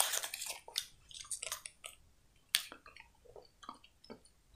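Close-miked chewing of a candy: irregular wet clicks and small crackles from the mouth, densest in the first second, then sparser.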